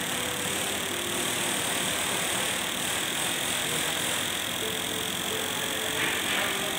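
Maruti Suzuki petrol fuel injectors pulsing rapidly on an injector cleaning and testing machine during a spray test: a steady mechanical chatter with spray hiss and a steady high tone.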